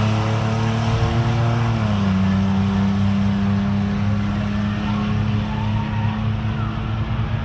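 A vehicle's engine running under steady power down the drag strip. Its pitch steps down once about two seconds in, then holds steady and slowly fades.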